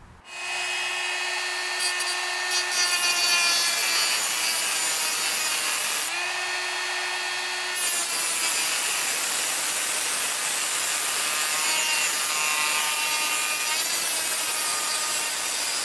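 High-speed rotary tool with an abrasive cut-off wheel grinding through the aluminium cooling fins of a Briggs & Stratton lawn mower cylinder head: a high, steady motor whine under a continuous hissing grind. About six seconds in, the grinding stops briefly and the tool whines on its own before it bites into the metal again.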